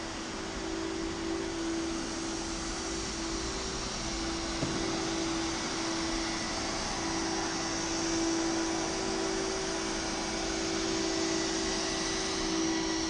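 Vacuum cleaner running steadily on the carpet: a continuous hum over a steady rush of air.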